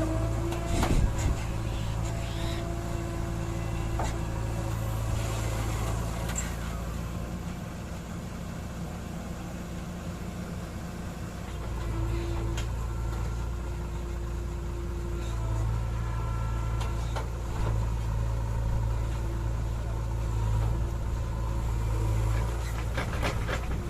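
JCB 3DX backhoe loader's diesel engine running under working load. It eases off for a few seconds in the middle, then picks up again, with a few sharp knocks of the bucket and soil.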